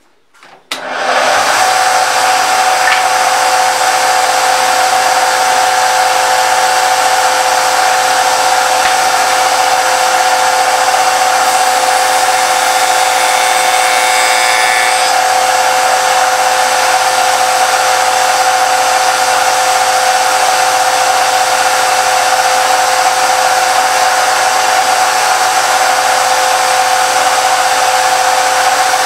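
Spindle moulder (wood shaper) switched on about a second in, its motor and cutter block coming up to speed and then running steadily with a high whine. Near the middle a short piece of wood is fed past the cutter, adding a faint cutting sound over the whine.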